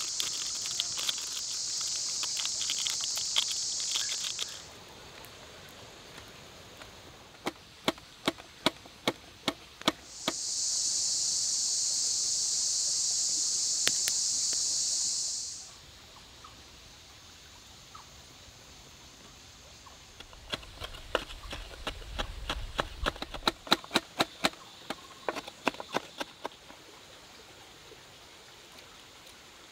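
Insects buzzing in a steady high band, dropping out about four seconds in and returning for about five seconds in the middle. In between and later come scattered small clicks and crinkles from hands handling seasoning packets and dropping ingredients into a pot.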